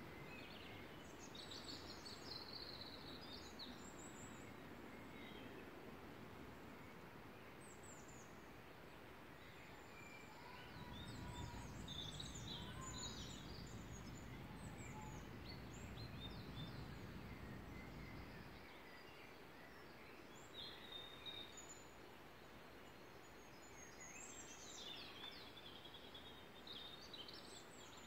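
Songbirds singing faintly in woodland, several overlapping songs of quick chirps and trills, over a steady background hiss. A low rumble comes in for several seconds in the middle.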